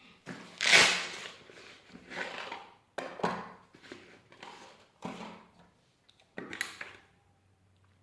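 Five separate scraping strokes of metal drawn hard against the spine of a Hultafors axe, each lasting up to half a second; the first, about a second in, is the loudest.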